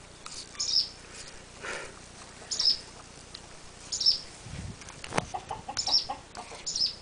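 A small bird chirping over and over, a short high chirp every second or so. A single sharp knock or crunch comes about five seconds in.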